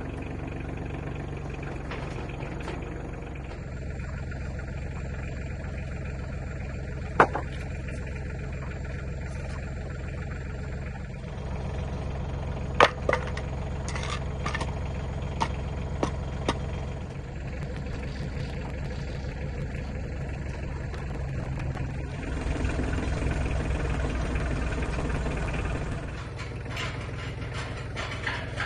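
Tractor engine running steadily, louder for a few seconds near the end, with a handful of sharp knocks, one about seven seconds in and a cluster a few seconds later.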